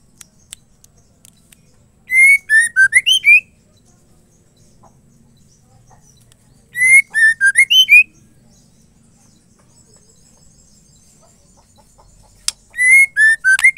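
Female white-rumped shama repeating a short whistled phrase of about six quick notes that dip and then rise at the end, given three times about four to five seconds apart.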